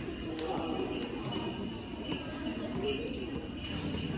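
Jingle bells shaken in a steady beat, swelling roughly every three-quarters of a second, with faint children's voices underneath.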